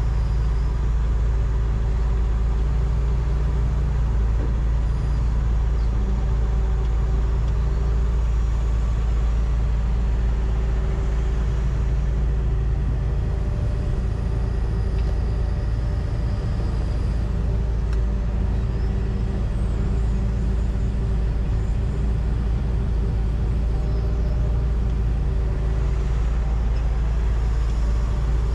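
John Deere 245G excavator's diesel engine running steadily, heard from inside the cab, with a humming tone that swells and fades every few seconds as the machine works.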